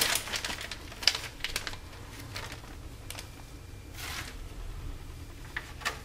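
Plastic zip-top bag of small screws being pressed shut and handled: a scatter of short crinkles and clicks, the loudest in the first second.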